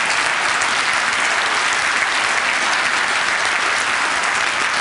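Audience in an auditorium applauding, steady and sustained.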